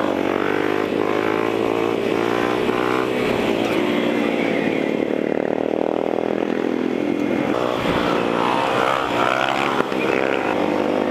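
Dirt bike engine running at speed, heard from the rider's seat, its pitch rising under throttle, easing off in the middle and rising again near the end.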